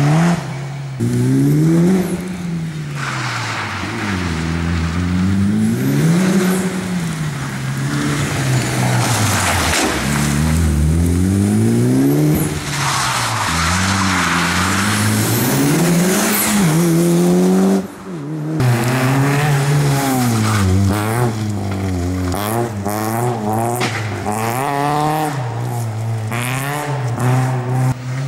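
Rally cars driven hard on a special stage, engines revving up and falling back again and again through gear changes and braking for corners. The first part is a turbocharged Mitsubishi Lancer Evolution; after a short break about two thirds through, a different car's engine takes over.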